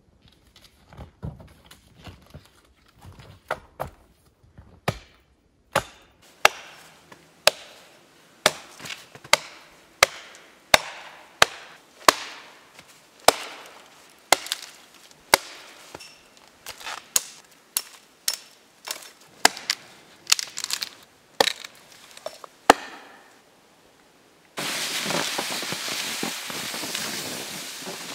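Hatchet chopping a dead fallen log: sharp wooden chops, about one every 0.7 seconds, after a few scattered snaps in the first seconds. About four seconds before the end the chopping stops and a steady rushing noise takes over.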